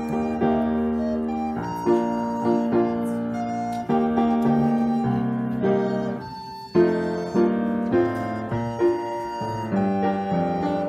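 Piano and recorder playing a tune together: piano chords struck about once a second under the recorder's held melody notes.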